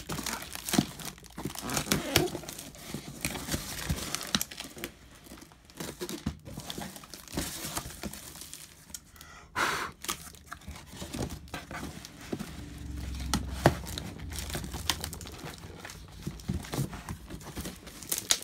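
Cardboard shipping carton being torn open by hand: packing tape peeling and ripping, cardboard flaps tearing and scraping, in irregular crinkles and rips with a louder rip about ten seconds in.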